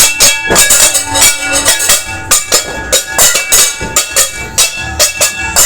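Metal being banged over and over for New Year noise-making: a fast, irregular clanging of several strikes a second, each hit leaving a metallic ring.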